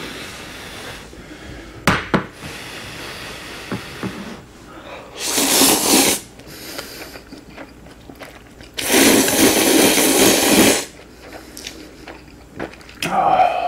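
Close-miked slurping of ramen noodles: two long, loud slurps, one about five seconds in and a longer one about nine seconds in, with a sharp click about two seconds in.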